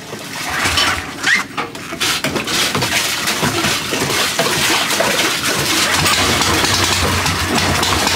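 Honda GX390 single-cylinder gasoline engine on its first test run: it starts up and builds within the first couple of seconds, then runs steadily with a rapid, even firing beat.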